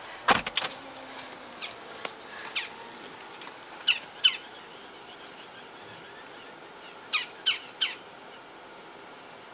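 Wild birds calling: short, sharp chirps that sweep down in pitch, coming singly and in pairs, with three in quick succession near the end.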